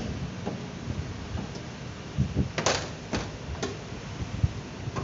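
A few sharp clicks and knocks with low thuds in between. The loudest comes about two and a half seconds in, and two lighter clicks follow within a second.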